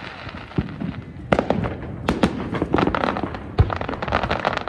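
Aerial fireworks going off: several sharp bangs, the loudest a deep boom about three and a half seconds in, with a run of rapid crackling through the second half.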